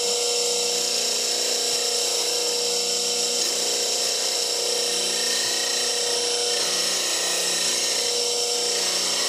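8-inch slow-speed bench grinder running, with a steady grinding hiss over the motor's hum as the bevel of a steel skew chisel is held against its CBN wheel.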